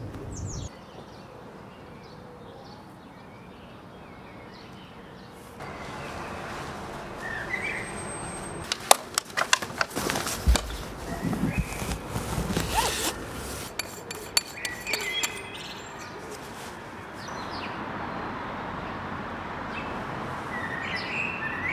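Outdoor ambience with a few bird chirps. About nine to thirteen seconds in, a run of sharp clicks and rustles as a Flipside 400 AW camera backpack is handled by its top straps.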